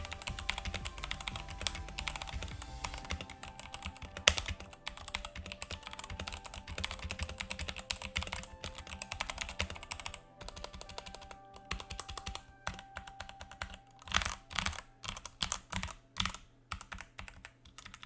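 Typing on a Redragon K552 RGB Kumara tenkeyless mechanical keyboard with linear red switches: a quick run of keystrokes, thinning to separate, louder key presses near the end.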